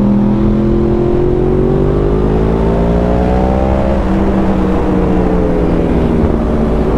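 Yamaha R1's inline-four engine accelerating hard, its note rising steadily for about four seconds, then dropping slightly as the throttle eases off. Wind rush runs underneath.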